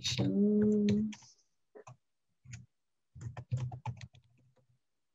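Computer keyboard typing in short bursts of keystrokes, with a brief hummed vocal sound for about the first second.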